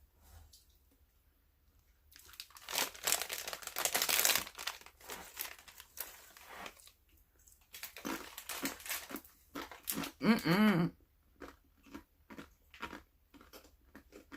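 Crinkling and tearing of the packaging of a box of Blue Diamond Nut Thins cheddar crackers as it is opened, with scattered rustles after. Near the end comes crunchy chewing of the crackers, about three crunches a second.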